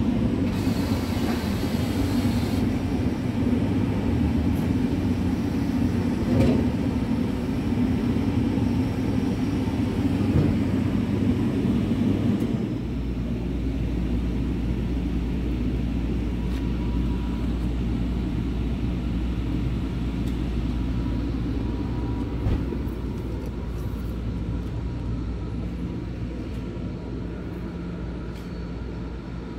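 Scania R tractor unit's diesel engine idling steadily. A little under halfway through, the idle turns to a deeper, heavier drone.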